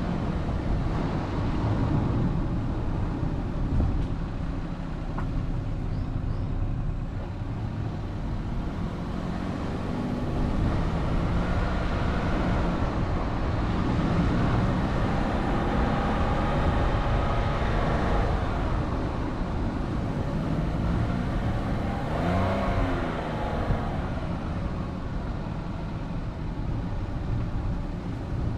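Vehicle engine and road noise while driving: a steady low rumble, with the engine's pitch rising and falling as it speeds up and slows down, most noticeably about halfway through and again a few seconds later.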